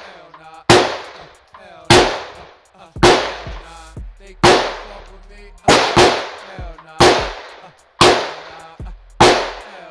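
Gunshots fired one after another at about one a second, nine in all, each trailing off in a short echo. Hip hop music with rapping plays underneath.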